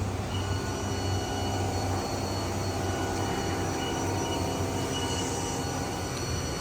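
Haas VF-6SS vertical machining center running: a steady whine of several high tones over a low hum. The whine comes in just after the start and fades near the end.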